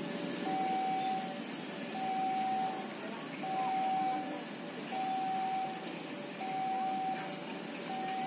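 Railway level-crossing warning alarm sounding a repeating two-note signal, a higher note then a lower one, the high note coming about every second and a half, with street traffic noise beneath it. The alarm marks the crossing as closed for an approaching or passing train.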